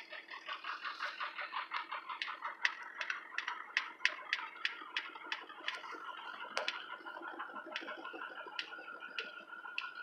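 Ford 6.0 Power Stroke V8 turbodiesel idling roughly, with a pulsing rhythm and a run of sharp ticks about three a second that spread out toward the end. It is a rough idle on a truck that has no power and no response to the accelerator, with no trouble codes.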